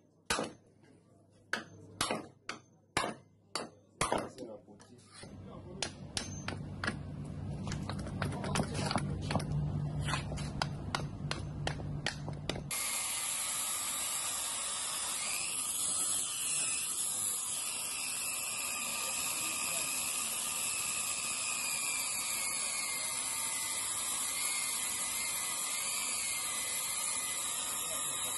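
Clicks and knocks from handling metal compressor parts, then a low machine hum with rapid clicking. From about 13 s in, an angle grinder cuts steadily through the steel shell of an air compressor, its whine wavering in pitch.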